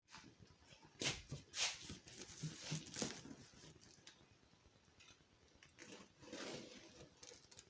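Brief handling noises: a few sharp rustles and clicks, then a quiet pause, then softer rustling near the end.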